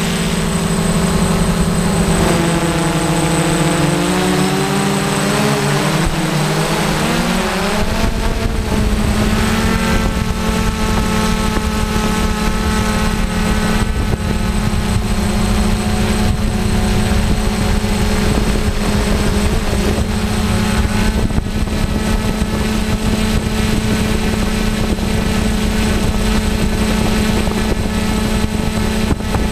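DJI F550 hexacopter's six electric motors and propellers humming, heard from the onboard camera. Their pitch drops for a few seconds and then climbs back as the throttle changes, then holds steady, with a low wind rumble on the microphone from about 8 seconds in.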